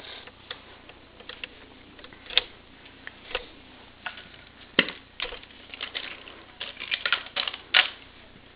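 Irregular light clicks and taps, with a sharper knock about halfway through and a quick run of knocks near the end.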